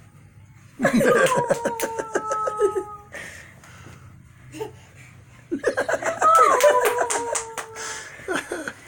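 Laughter in two bursts, rapid pulsed ha-ha sounds: one starting about a second in and lasting about two seconds, a second starting about five and a half seconds in and lasting about two and a half seconds.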